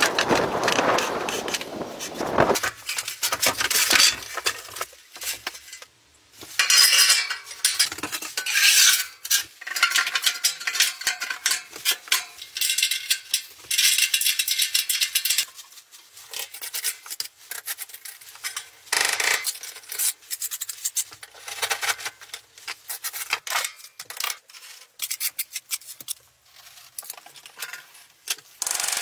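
Metal on metal from a steel sauna stove and its firebox door being moved and fitted: a string of clinks, knocks and scrapes, some with a short ring.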